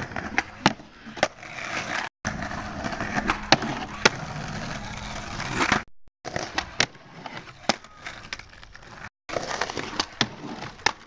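Skateboard wheels rolling over rough, cracked asphalt, with a series of sharp wooden clacks from the board popping, hitting the low wooden box and landing. The sound drops out briefly three times.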